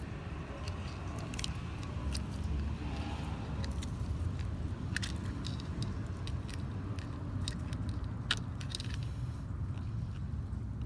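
Scattered small metallic clicks and scrapes as a roller chain's master link spring clip is worked onto the pin by hand, over a steady low rumble.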